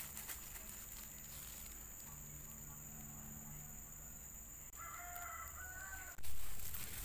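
A rooster crowing faintly in the background about five seconds in, over a low steady hum. About six seconds in, a sudden loud crunching rustle begins as the dry fried noodles are handled.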